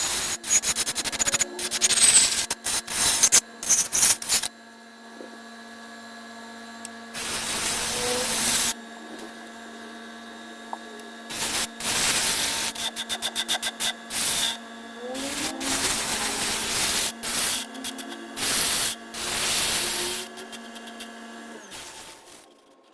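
Hand sanding of a walnut bowl: a run of quick rubbing strokes over the first few seconds, then longer strokes spaced apart by short pauses. A steady low hum runs underneath.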